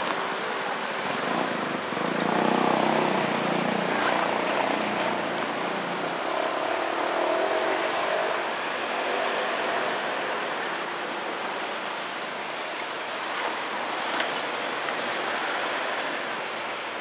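Road traffic: a motor vehicle passes close by, loudest from about two to five seconds in, over steady traffic noise.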